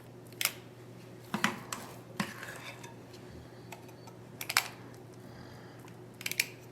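Scattered clinks and knocks of a utensil against a bowl and a metal muffin tin as thick muffin batter is spooned into the cups, about five separate taps spread over several seconds.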